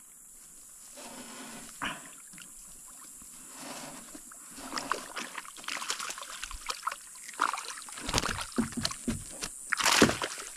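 Water splashing and sloshing around a small fishing boat, with irregular knocks and clatter that grow busier after a few seconds and are loudest near the end.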